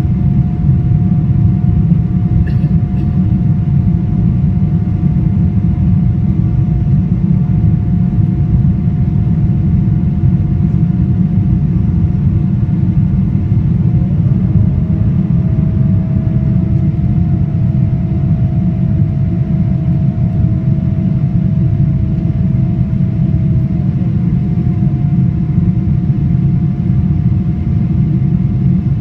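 Inside the cabin of a Boeing 777-300ER climbing after takeoff: the steady roar of its GE90 engines and the rushing air, with a steady whine on top. About halfway through a second, slightly lower whine slides in, holds for about ten seconds, then slides away.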